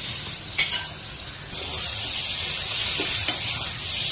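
Raw chicken pieces sizzling in hot mint masala paste in a stainless steel pot, with a sharp knock about half a second in. The sizzling grows louder from about a second and a half in as the pieces are stirred with a metal spatula.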